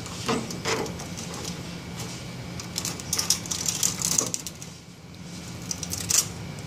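Flathead screwdriver prying and scraping copper windings out of a vacuum motor's steel stator held in a vise: scattered metallic clicks and scrapes, a busier run of scraping in the middle, and a sharp click near the end, over a steady low hum.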